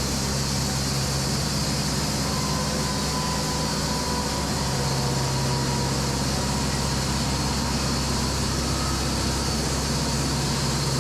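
Echo 45HD2 band sawmill running: a steady machine hum with hiss, its low tone growing stronger about halfway through, and a faint high whine in the middle.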